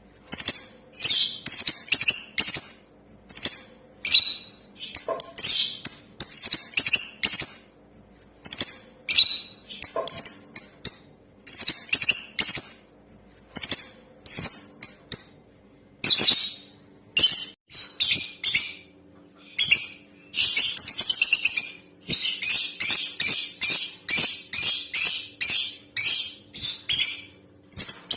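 Female lovebird calling in quick bursts of shrill, high chirps with short pauses between them, running into a long unbroken stretch of rapid chatter in the last third.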